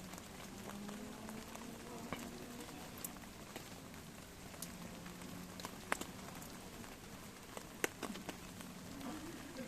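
Wood fire crackling steadily, with a few sharp pops about two, three, six and eight seconds in.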